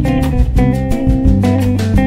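Background music: plucked guitar over a bass line with a steady beat.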